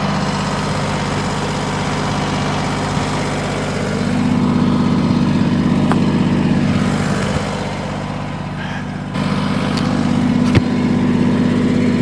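Kubota BX23S sub-compact tractor's three-cylinder diesel idling steadily, its hum swelling slightly at times. A sharp knock sounds near the end.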